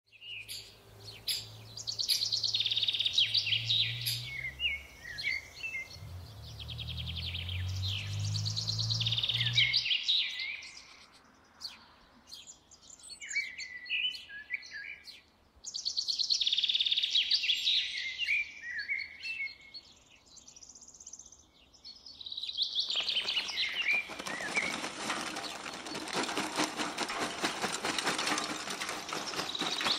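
Songbirds chirping and singing for about the first twenty seconds, over a low hum in the first ten. About twenty-three seconds in, charcoal is poured from a paper sack into a barrel barbecue grill: a continuous dry rattle of tumbling lumps.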